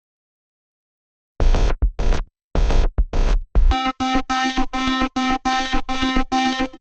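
Radio communication sound effect: a few short crackling bursts of static, then a rapid series of buzzy electronic beeps, about three a second.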